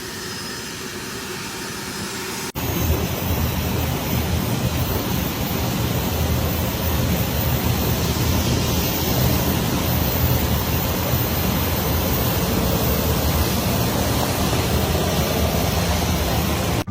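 Private jet's engines running, a steady noise with a low hum that jumps suddenly louder about two and a half seconds in.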